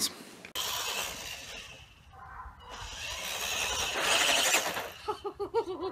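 Electric radio-controlled toy car running, its motor whirring and tyres hissing. It fades away about two seconds in, then builds up again. A brief voice comes near the end.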